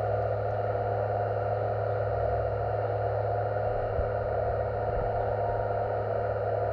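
A small electric hydraulic pump on an RC model excavator runs steadily, a constant hum over an even whirring whine, with a brief knock about four seconds in.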